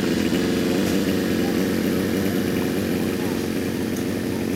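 An engine running steadily with a fast, even beat, over background voices.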